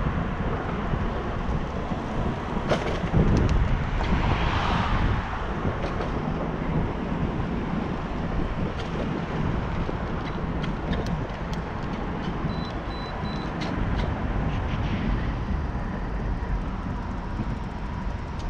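Wind buffeting the microphone of a camera on a moving bicycle, over steady road and tyre rumble, with scattered short clicks and a louder swell of noise about four seconds in.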